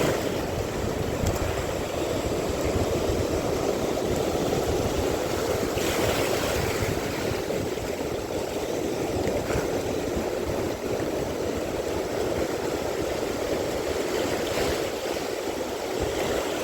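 Steady wash of sea water and wind, with a brief brighter rush about six seconds in and again near the end.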